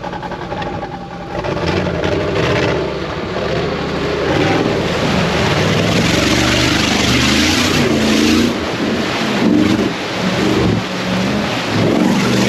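Off-road 4x4's engine revving up and down hard as it drives through water, with loud splashing and rushing water in the middle of the stretch.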